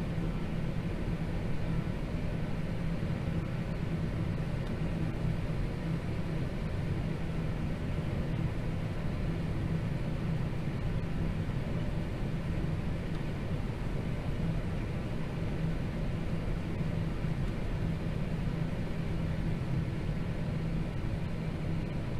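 John Deere T670i combine harvester running steadily while cutting barley: a constant low machine drone with a steady hum, unchanging throughout.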